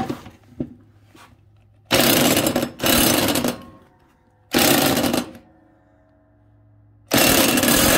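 Cordless impact wrench hammering in four short bursts, tightening a riding-mower blade nut onto its deck spindle. It is given brief hits rather than run on, so as not to over-tighten the nut.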